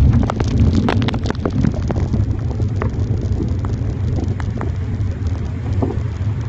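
Wind buffeting the microphone of a bike-mounted phone as a low rumble, with heavy rain pattering on the phone's waterproof case as many sharp ticks, thickest in the first couple of seconds.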